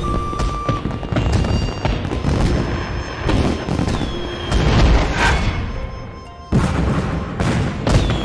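Fireworks going off: repeated booms and crackling bangs over background music, with a short lull broken by a sudden bang about six and a half seconds in.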